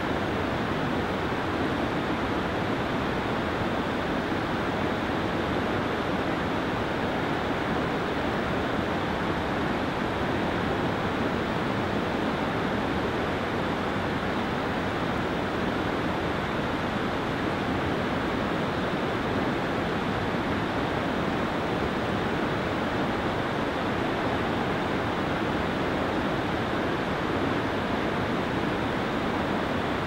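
Waterfall in heavy spring flow: a steady, even rush of falling water that does not change.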